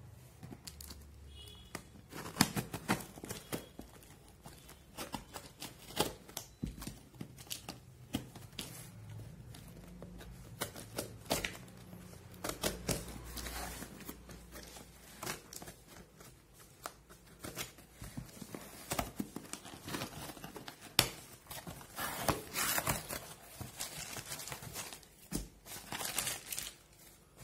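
Cardboard shipping box being opened by hand: packing tape cut and torn away, flaps scraping and paper packing crinkling, in irregular bursts of rustles, scrapes and sharp clicks.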